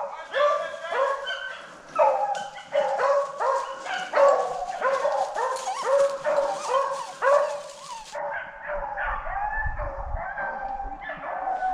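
A pack of rabbit-hunting dogs baying on the track of a swamp rabbit. The dogs give short, overlapping calls, about two a second.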